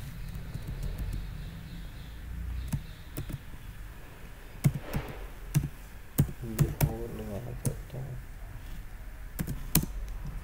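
Computer keyboard being typed slowly: a scattering of separate, unevenly spaced key clicks over a low steady hum, with a brief low murmur in the middle.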